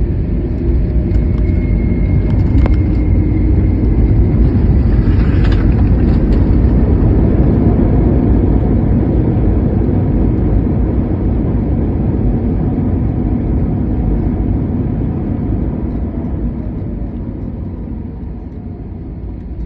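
Airbus A321 jet engines during landing: a heavy, steady rumble that swells for several seconds and then gradually fades as the aircraft slows.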